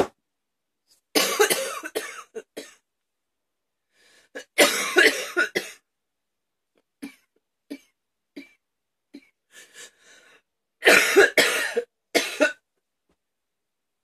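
A woman coughing hard in three fits, each a quick run of harsh coughs: about a second in, near the middle, and near the end. A few short, quieter sounds fall between the fits.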